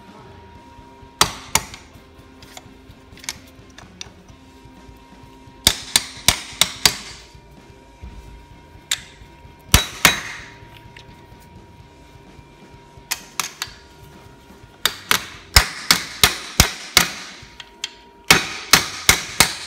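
Hammer blows on metal as a new clutch release bearing, held in a bench vice with an old bearing laid on top as a drift, is tapped into place. The taps come in groups: a couple early, a quick run about six seconds in, one heavy blow near ten seconds, then faster runs of taps through the last five seconds.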